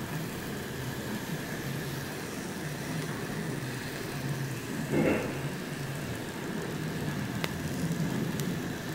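Clear protective plastic film being peeled slowly off an iPhone X's glass screen: a faint steady crackle, with a louder crinkle about five seconds in and a small click a couple of seconds later.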